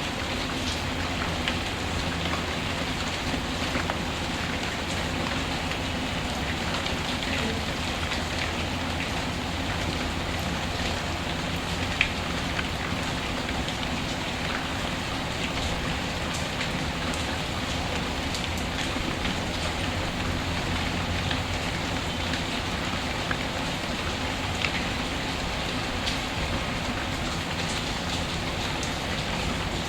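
Steady rainfall, an even hiss, with scattered sharp pops and crackles from a wood fire. The loudest pop comes about twelve seconds in.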